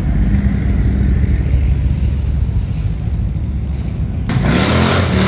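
Vehicle engine idling with a steady low rumble, then revving up with a rising note about four seconds in.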